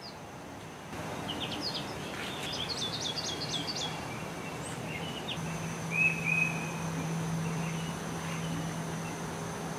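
Small birds chirping outdoors: a quick run of short high chirps a couple of seconds in, then a few single calls, over a steady background hiss. A low steady hum comes in about halfway through.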